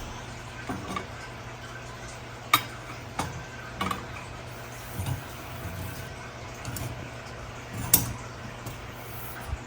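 Pole sections of a prop's stand frame knocking and clicking as they are handled and fitted together: a series of irregular knocks, two of them sharp and loud, about two and a half and eight seconds in.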